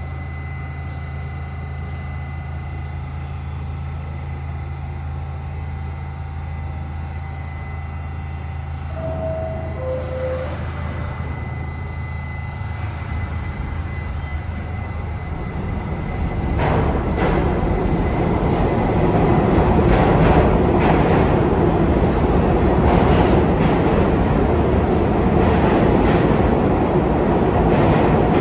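New York City subway train standing at the platform with a steady electrical hum, then a two-note descending door chime about nine seconds in. The train pulls out, its rumble and the clatter of its wheels growing loud from about sixteen seconds in.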